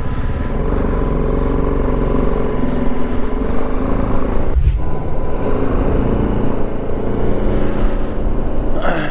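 A BMW G 310 GS motorcycle's single-cylinder engine running steadily while riding, over a low rumble. The engine note dips briefly about halfway through.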